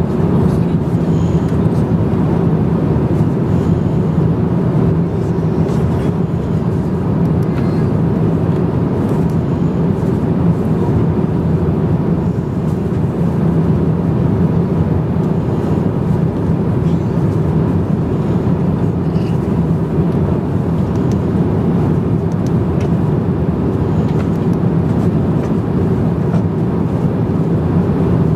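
Steady in-flight cabin noise inside an Airbus A350-900 airliner: an even, loud rush of airflow and engine noise with a low hum in it.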